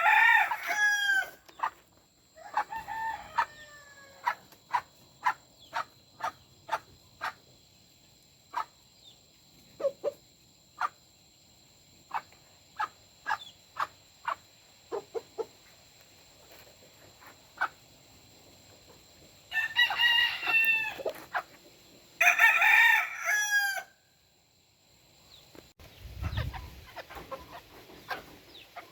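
Game roosters crowing: one call at the start, another about three seconds in, and two more close together around twenty seconds in, with short clucks from the flock in between.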